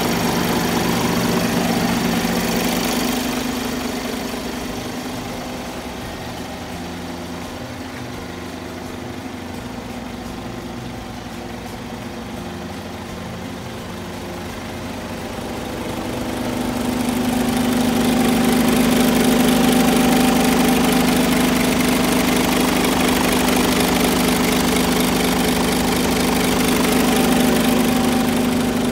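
Isuzu Giga heavy truck's diesel engine idling steadily, with an even hum. It is louder at the start, quieter for a stretch, and louder again from about halfway through.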